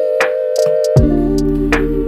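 Background electronic music: sustained synthesizer chords over a drum-machine beat, with a deep bass line coming in about a second in.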